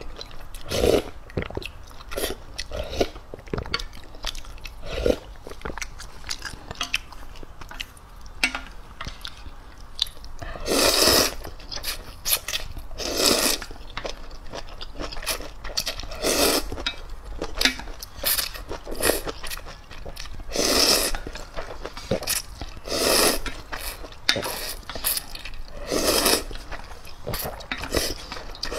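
Instant ramen noodles in spicy soup being slurped, close up. There are several long, loud slurps from about ten seconds in, with chewing and small wet mouth clicks between them.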